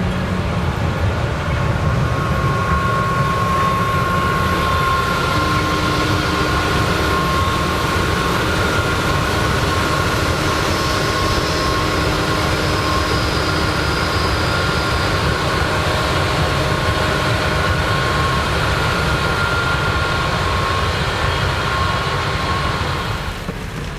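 Heavy farm harvesting machinery running steadily close by, a dense engine rumble with a few steady high whining tones over it. It eases off just before the end.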